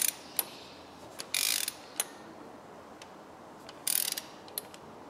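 Ratchet of a torque wrench clicking in three short runs as the diesel injectors are tightened to about 60 N·m, with single sharp clicks in between.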